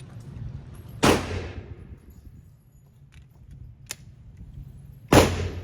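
Two pistol shots about four seconds apart, each a sharp crack with a short echoing tail off the walls of an indoor range, with a faint click between them.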